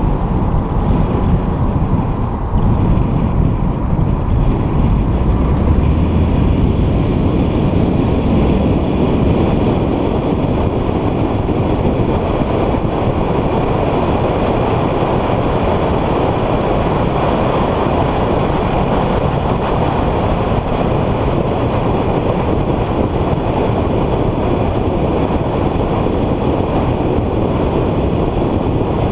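Car driven at track speed, heard from inside the cabin: a steady mix of engine, tyre and wind noise, with a brief dip in level about two and a half seconds in.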